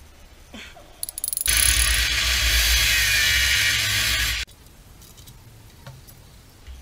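Angle grinder cutting metal: a few short bursts about a second in, then about three seconds of steady grinding with a high whine, cut off suddenly.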